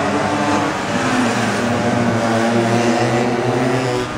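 Small air-cooled minimoto (pocket bike) engines buzzing at high revs, their pitch rising and falling as the riders work the throttle. The sound drops a little in loudness near the end.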